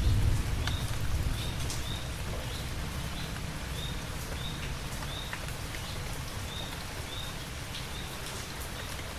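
Steady rain with scattered drips tapping, and a bird giving short high chirps about once or twice a second that stop near the end. A low rumble fades away in the first second or so.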